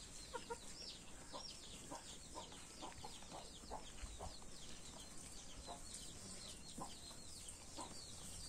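Faint farmyard birdsong: small birds chirping rapidly and continuously in high, quick notes, with a hen clucking every second or so.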